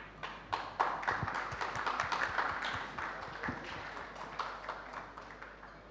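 Audience applauding, starting just after the beginning, loudest in the first couple of seconds and thinning out toward the end.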